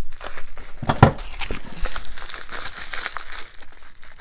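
Plastic bubble wrap crinkling and crackling as a wrapped bundle is handled and cut open with scissors, with one sharp thump about a second in.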